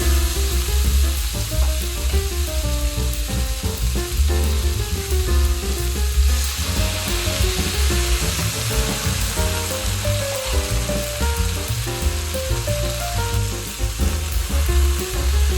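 Chicken and vegetable stir fry sizzling in a hot pan, under background music with a melody and a strong bass. The sizzle grows louder about six seconds in.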